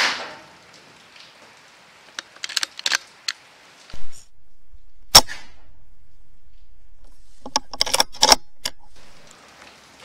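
A BSA Super10 .22 pre-charged air rifle fires once, a single sharp crack about five seconds in over a steady low hum. About three seconds later comes a quick cluster of metallic clicks from handling the rifle.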